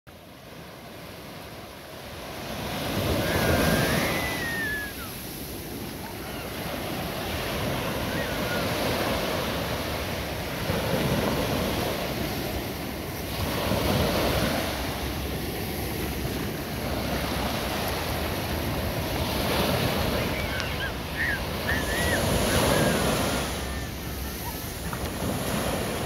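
Small surf waves breaking on a sandy shore and washing up the beach, the rush of water swelling and easing every few seconds.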